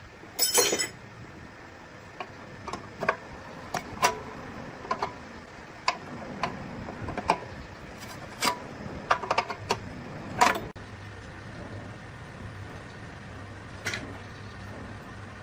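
Irregular metallic clicks, clinks and knocks of hand tools and small metal engine parts being handled and worked, with a louder clatter about half a second in and another about ten seconds in.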